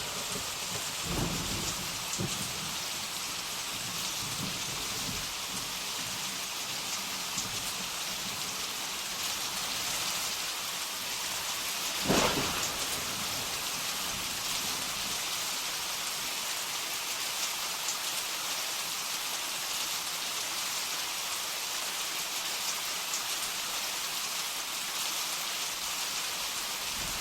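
Heavy rain pouring steadily in a thunderstorm. Thunder rumbles over the first few seconds, and a sharp thunderclap breaks about twelve seconds in.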